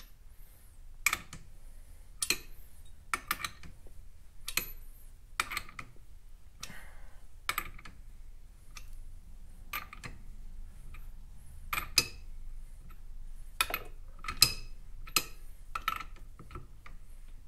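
Hand ratchet and socket clicking as the scooter's variator nut is snugged down by hand: about twenty separate sharp metal clicks, sometimes in pairs, spaced irregularly about half a second to a second apart.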